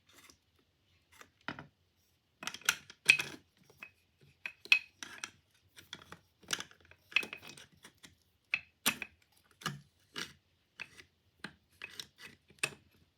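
Irregular metallic clicks and clinks of a Stanley hand plane being handled while its blade-adjustment screw and parts are worked by hand, the blade setting not yet right.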